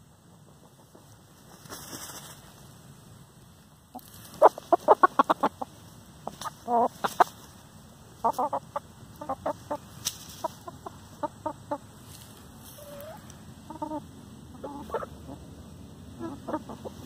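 Hens clucking while they dust bathe together: a quick run of short clucks about four seconds in, then scattered clucks and murmurs.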